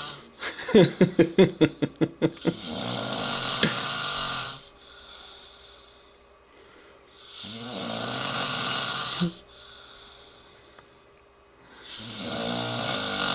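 A man passed out asleep, snoring loudly. It opens with a rapid rattling snore of about a dozen flutters, then long rasping snores on each breath, roughly every four to five seconds, with quieter breathing between.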